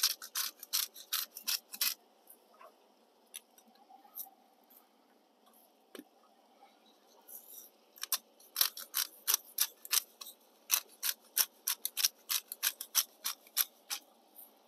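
Hand-held spice grinder twisted over a pan, giving runs of quick crunching clicks, about four or five a second: one short run at the start and a longer one from about eight seconds in, with a few single clicks between.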